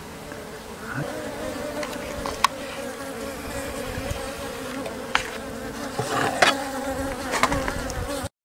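A freshly hived swarm of Japanese honeybees humming steadily inside a wooden hive box, an even buzz on one low pitch. A few sharp clicks of handling come through it, and the sound cuts off abruptly near the end.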